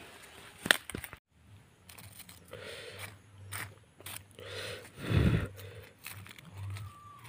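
Charred, ash-baked leaf wrapping crackling and crunching as fingers break it open and peel it back, in several short crinkly rustles, the loudest about five seconds in.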